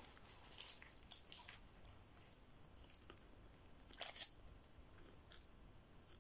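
Faint mouth sounds of a person biting into and chewing a burger: soft wet clicks and crackles, with a louder crackle about four seconds in.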